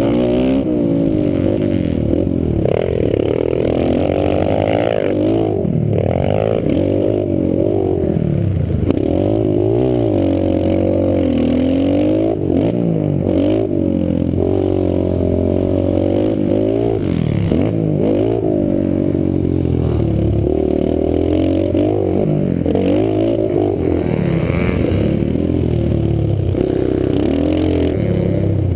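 Small single-cylinder four-stroke pit bike engine, heard from on board, revving up and falling back again and again as it is ridden hard through the turns of a dirt track.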